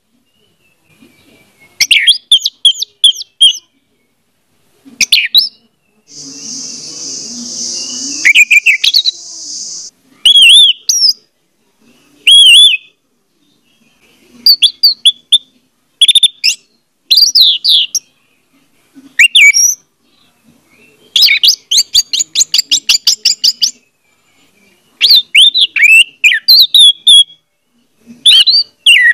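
Orange-headed thrush singing: loud, short bursts of quick, sliding whistled notes with pauses between them, including a fast run of repeated notes about three-quarters of the way through. A few seconds of hiss sit under the song about a quarter of the way in.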